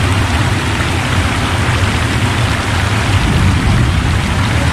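Heavy rain and strong wind, a steady rushing noise over a low rumble.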